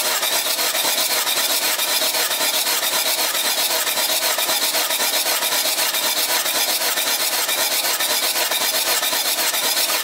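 Mitsubishi 4D56U 2.5 L common-rail turbo diesel being cranked over on its starter motor for a compression test of number four cylinder. The cranking is a steady, even, rapid pulsing that holds at one speed.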